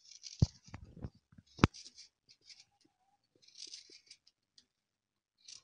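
A kitchen knife peeling the skin off a round gourd (chappan tinda), the blade scraping in short strokes, with a few light knocks in the first two seconds.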